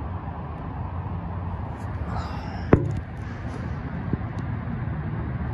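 Steady low rumble of road traffic outdoors, with one sharp click a little past halfway through.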